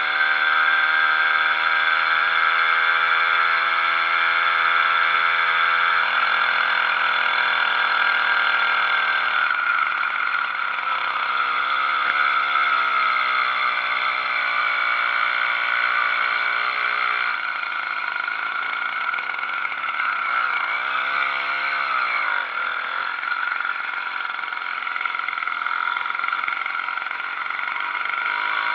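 Small 80cc two-stroke engine of a motorized bicycle running while the bike is ridden. Its note shifts as the rider speeds up and slows, rising and falling about two-thirds of the way through.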